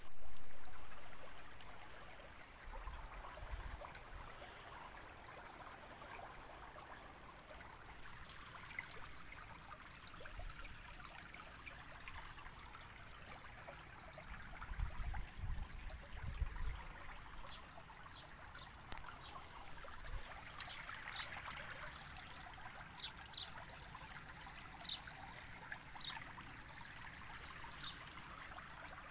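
Shallow stream water trickling and running over stones. It begins with a loud burst that fades over about two seconds, and a few low bumps on the phone's microphone come around three seconds in and again around fifteen seconds in.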